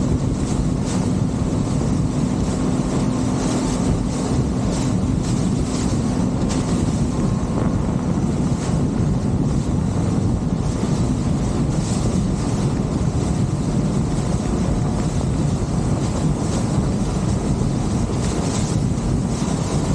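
Motorboat under way through choppy water, its engine hum under heavy wind buffeting on the microphone and the rush of water past the hull.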